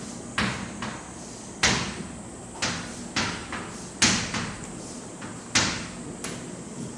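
Writing or drawing strokes on a board or page, heard as about a dozen sharp taps and short scrapes at uneven spacing while a circuit diagram is drawn.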